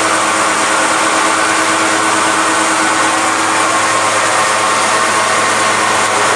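Mini blast furnace running, its air blower giving a steady, unbroken rush of air with a constant hum.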